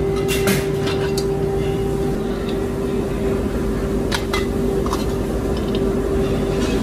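Steady hum of factory machinery, with a few short, sharp clinks of cast aluminium ceiling fan housings knocking together as they are handled and stacked.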